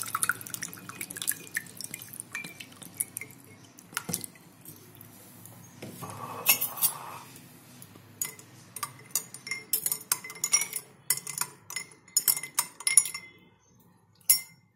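Cold water poured from a plastic bottle into glasses of rose syrup over ice, then a steel spoon stirring in a glass tumbler, with a run of quick clinks against the glass and ice in the second half.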